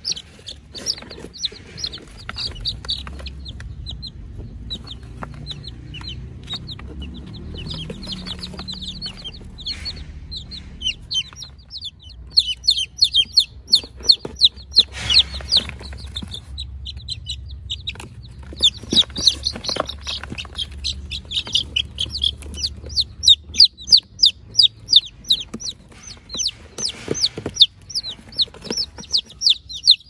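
Young chickens peeping in a group: many short, high, falling cheeps in quick succession, thickening into a near-continuous chorus in the second half.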